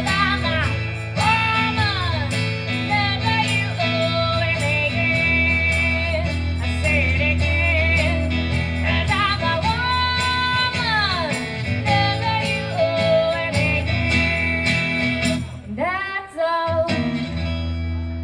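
A female vocalist sings long held notes that slide up and down over acoustic guitar accompaniment, with a short drop in level about sixteen seconds in before the guitar carries on.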